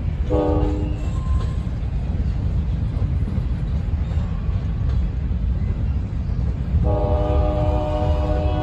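CSX grain train's covered hopper cars rolling past with a steady low rumble. A locomotive air horn sounds a short blast just after the start and a longer one beginning about seven seconds in.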